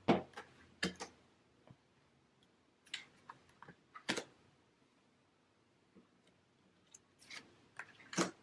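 Tarot cards being handled and laid down on a tabletop: short slaps and slides of card stock, in three quick clusters about four seconds apart.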